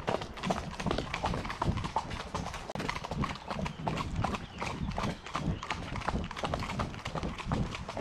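Hooves of two horses, a KWPN warmblood and the horse ahead of it, clip-clopping steadily on a gravel track.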